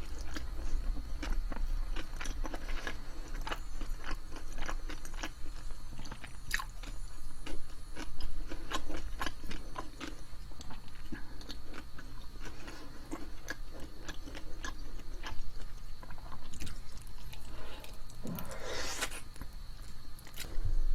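Close-miked biting, chewing and crunching of food, with many short crisp crunches. A brief louder rustle or scrape comes about two seconds before the end.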